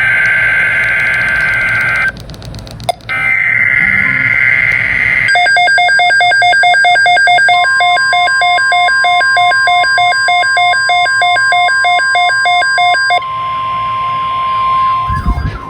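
NOAA Weather Radio emergency alert tones: the screeching data bursts of the digital alert header, then rapid pulsing electronic beeps, joined about seven seconds in by the long steady 1050 Hz warning alarm tone. They signal an incoming alert, here a severe thunderstorm watch.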